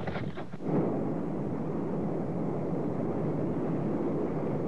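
Lava fountaining from a rift fissure with a steady low roar. The first moment has a rougher crackling that gives way to the even roar.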